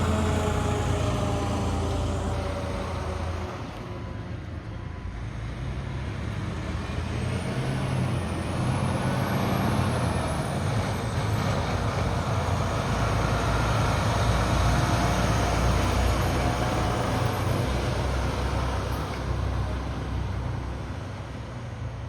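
Heavy fire apparatus engines rumbling as the trucks pull in, opening with the last of a siren winding down. The rumble dips a few seconds in, swells to its loudest around the middle and fades near the end.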